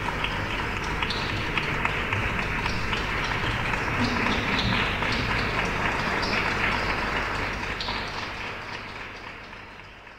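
Audience applauding, a dense steady patter of clapping that fades out over the last two seconds.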